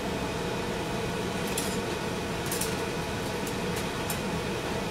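Kitchen range hood fan running steadily, with several light clinks of kitchenware at the pan starting about a second and a half in.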